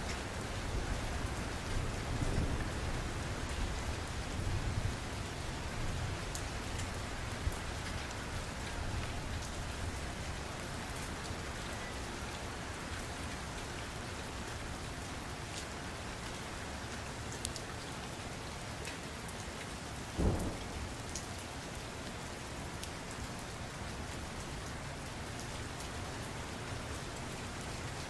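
Steady rain, with low rumbles of distant thunder during the first part and a single dull thump about twenty seconds in.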